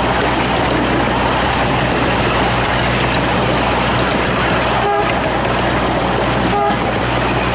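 Small-scale passenger train running along the track, a steady rushing rumble with a low hum under it. There are two short toots from the locomotive, about five seconds in and again a second and a half later.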